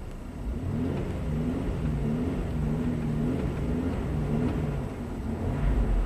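2009 Chevy Traverse's 3.6-litre direct-injection V6 picks up speed about half a second in, then runs with its pitch wavering up and down. The engine is about three and a half quarts low on oil, and its variable valve timing is misbehaving.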